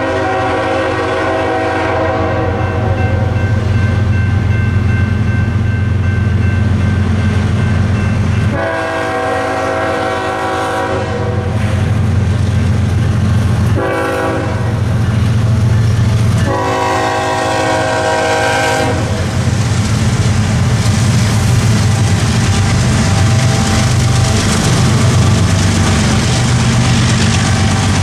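Locomotive air horn on a GE ES44C4 sounding the long-long-short-long grade crossing signal, over the steady rumble of the approaching diesels. After the last blast, about 19 seconds in, the train rolls through with its wheels clacking on the rails.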